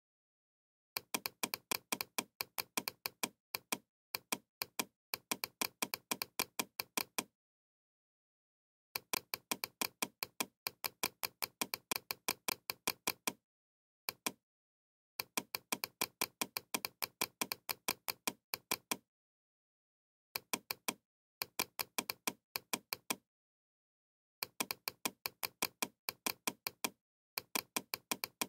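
Computer mouse button clicked rapidly, about six clicks a second, in runs of a few seconds with short gaps between: repeated clicks spraying the airbrush in a paint program.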